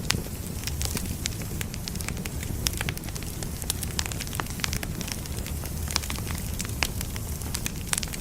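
Firewood burning with a steady low rumble and hiss, crackling with frequent irregular snaps and pops of the wood.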